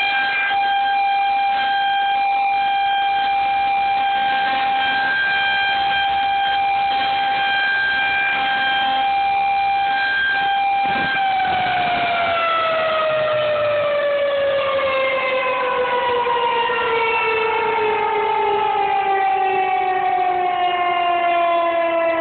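Outdoor tornado warning siren holding one steady high tone, then, about halfway through, starting to wind down, its pitch falling slowly and evenly as it shuts off.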